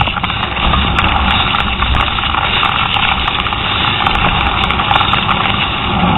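Steady rush of wind and tyre noise from a downhill mountain bike ridden fast over a dirt track, picked up by a camera riding along, with scattered clicks and rattles from the bike.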